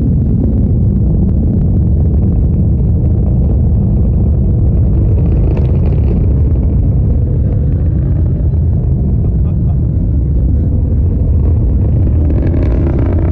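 Deep, steady rumble of a Falcon 9 rocket's nine Merlin engines climbing after liftoff, heard from miles away at the launch site.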